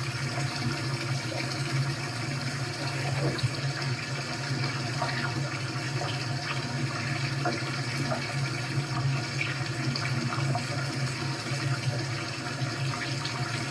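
Recorded running-water sound played back through a computer's speakers: a steady, even rush of water with a constant low hum underneath.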